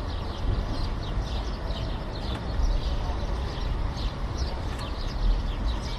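City street ambience: a steady low traffic rumble with many small birds chirping over it.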